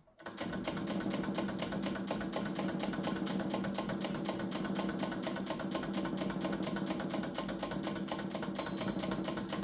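A Stoewer Elite manual typewriter being typed on: a fast, even run of key and typebar strikes, each one advancing the ribbon spools.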